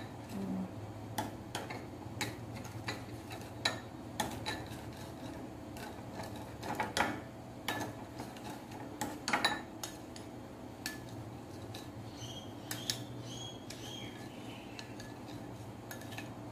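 A metal spoon stirring a sauce mixture in a small ceramic bowl, clinking and scraping irregularly against the bowl.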